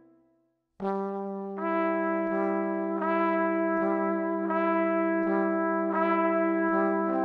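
Background music that starts about a second in after a short silence: held brass notes over a steady low note, the melody moving on every second or so.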